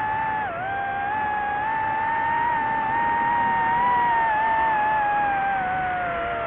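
DJI FPV drone's propellers and motors whining, the pitch wavering up and down with the throttle, with a quick dip about half a second in and a slide down near the end.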